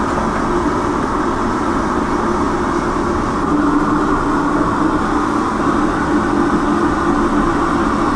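Loud, steady mechanical roar with a low hum that grows stronger about halfway through.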